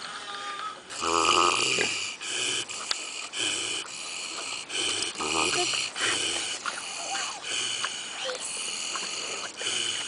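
Kune Kune pig snoring in its sleep, one snore after another at an uneven pace.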